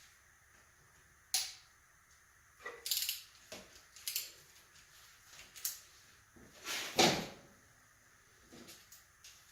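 Scattered metal knocks and clanks from tapping a connecting rod cap loose and handling parts and tools on an LS V8 engine's bottom end, the loudest about seven seconds in.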